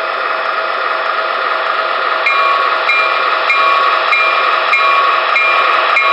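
Sound-equipped HO-scale ES44AC model locomotive playing recorded diesel engine sound through its small onboard speaker. About two seconds in, its locomotive bell starts ringing, a strike roughly every 0.6 s, over the steady engine sound.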